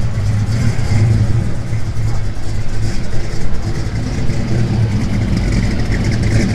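A car engine running at idle, a steady low rumble.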